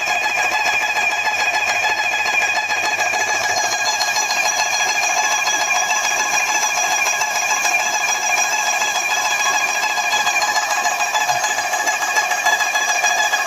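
LP 600 paint-spraying machine running, a steady, even whine of several high tones over a hiss.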